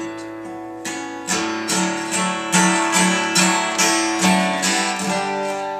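Dreadnought steel-string acoustic guitar strummed in an instrumental interlude of the song: a steady rhythm of chords, about two to three strums a second.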